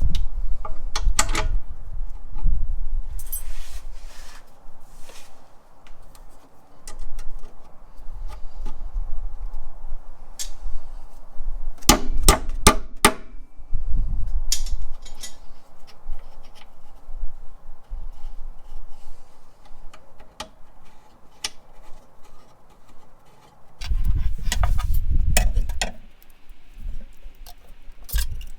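Hand tools and metal hardware clinking and knocking, with low thuds, during work on a VW Beetle's front suspension. The sounds come irregularly, with the busiest clusters about a second in, near the middle, and near the end.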